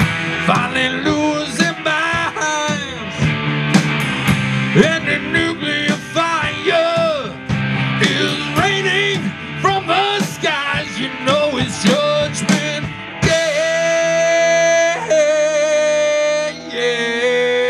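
Live rock band playing an instrumental passage: an electric guitar lead with bending notes over bass guitar and drums. Near the end the lead settles into long held notes.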